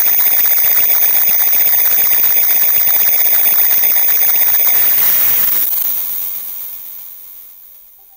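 Loud, harsh electronic static with dense crackling and high-pitched whining tones, like a glitching alarm. It fades away from about five seconds in.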